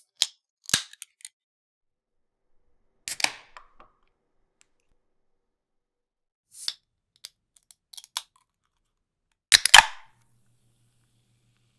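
Aluminium drink can being opened by its ring-pull: sharp clicks and pops of the tab, in four bursts a few seconds apart, the loudest near the end.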